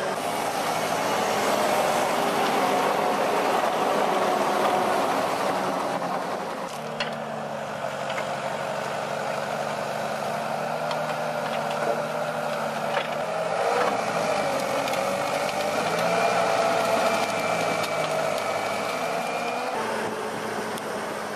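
Valtra forest tractor's diesel engine running steadily under load, its pitch wavering briefly past the middle, with occasional clicks and rattles.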